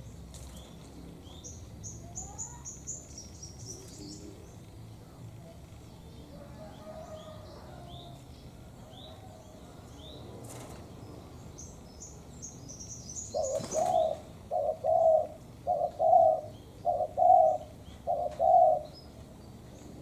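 Spotted dove cooing: a series of five loud, low coos in the second half. Faint high chirps of small birds run throughout, with a few brief sharp noises.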